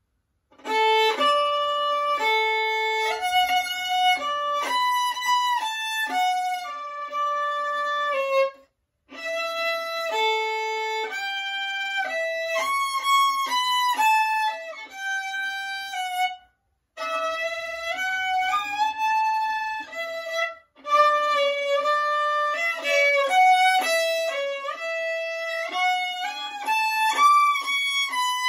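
Unaccompanied solo violin played with the bow: a melody of held and moving notes in phrases, broken by short pauses.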